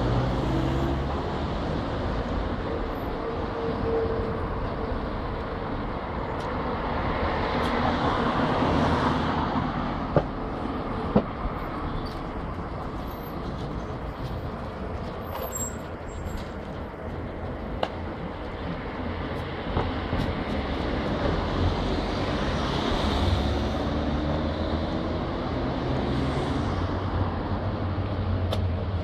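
Street traffic noise: a steady rumble and hiss of passing road vehicles, with two sharp clicks about ten and eleven seconds in.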